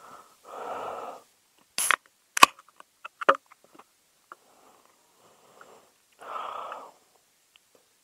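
A beer can picked up and cracked open: a short hiss and a sharp click about two seconds in, then a few small clicks and taps. A breathy exhale comes before it and another near the end.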